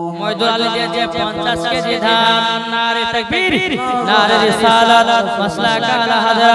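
Melodic religious chanting in a singing voice, holding long notes that waver in pitch, the first held for about three seconds.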